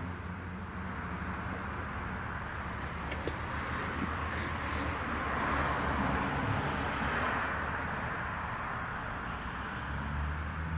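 Riding lawn mower's engine running steadily with an even hum.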